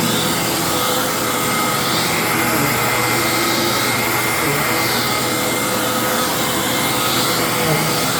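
A 1998 Hoover WindTunnel upright vacuum cleaner running steadily, its motor (which the owner thinks is Maytag-built) giving a steady whine with a high tone over the rush of air. There is some bearing noise in the motor, and it runs noisier than newer models.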